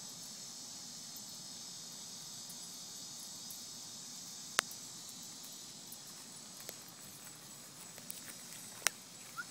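Steady high-pitched chorus of insects chirping in the vegetation, broken by two sharp clicks, one about four and a half seconds in and one near the end.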